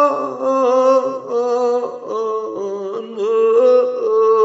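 A solo voice chanting a Kashmiri marsiya, the mourning elegy, in long drawn-out wavering notes without clear words. It steps between a few pitches and settles on one held note near the end.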